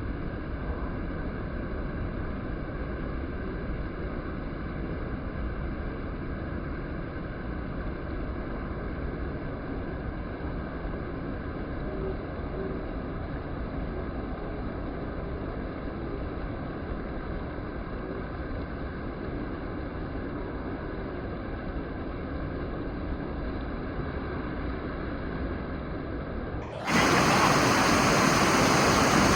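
Steady, muffled rushing of sea surf and wind on the beach. About 27 s in it cuts abruptly to a louder, brighter rush.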